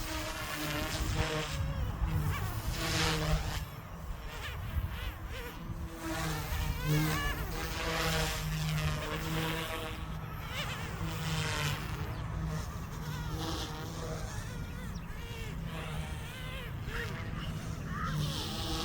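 Electric Goosky S2 RC helicopter in flight: a high motor and rotor whine that rises and falls in pitch as the throttle and manoeuvres change.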